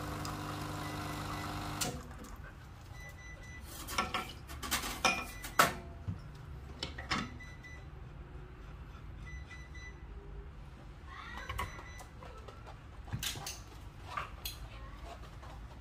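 Quick Mill Rubino E61 espresso machine flushing water through its group head: a steady pump hum with water hiss, which cuts off about two seconds in. It is followed by scattered sharp clicks and knocks, some with brief metallic ringing.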